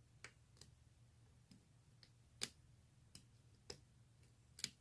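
Faint, irregular clicks of a lock pick and tension wrench working the pin tumblers of a CISA 220/40 five-pin brass padlock. About seven clicks in all, the loudest about two and a half seconds in and a quick pair near the end.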